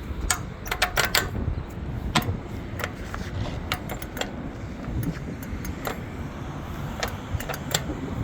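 Sharp ticks and clicks, roughly one a second and sometimes in quick clusters, over a steady low rumble of road traffic.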